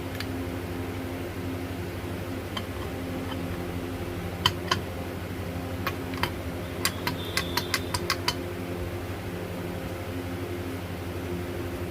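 Short metallic clicks and taps, about a dozen, bunched between the middle and near the end, over a steady fan-like hum.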